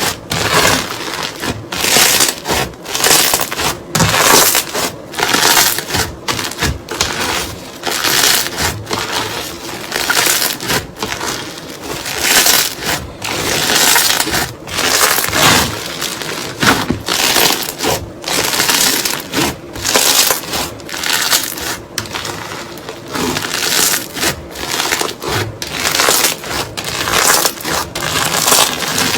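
Crunchy slime being squeezed and pressed, crackling and popping in quick irregular bursts.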